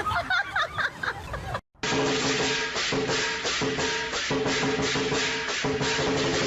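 Short high, gliding pitched sounds that end abruptly in a brief silence, then background music with a quick, even shaker rhythm over held tones.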